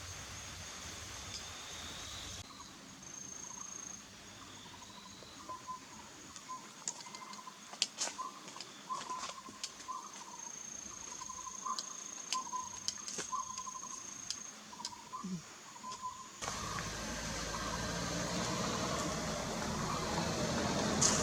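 Collared owlet singing: a long series of short whistled hoots on one pitch, repeated evenly for about a dozen seconds. Sharp clicks are scattered through the middle, and a steady rushing noise takes over for the last few seconds.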